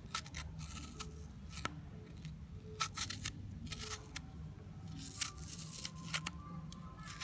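Long fingernails tapping and scratching on an apple's skin: sharp clicks and short scratchy strokes at an uneven pace.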